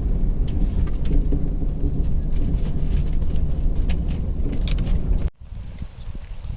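A vehicle driving: a heavy low rumble with rattling and jangling, as over a rough road. It cuts off suddenly about five seconds in, leaving a much quieter background.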